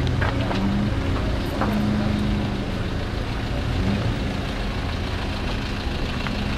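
Steady low rumble of nearby car engines running.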